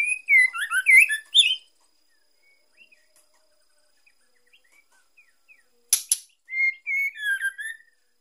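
Female white-rumped shama calling in two bursts of quick whistled notes that slide up and down, with soft scattered notes between them and one sharp click about six seconds in. Calls of the female like these are played to excite a male shama into mating condition.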